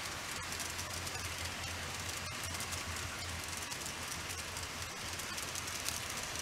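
TOMIX N-gauge C55 steam locomotive model and its passenger cars running on the layout's track: a steady fine rattle of wheels over the rails, with a low hum underneath.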